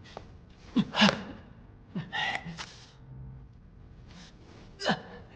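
A person taking a series of short, sharp gasping breaths in separate bursts, as in a breath-control drill.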